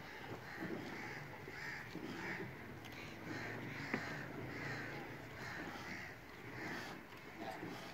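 Milk squirting into a steel pot as a cow is milked by hand, one short spurt about every two-thirds of a second in a steady rhythm.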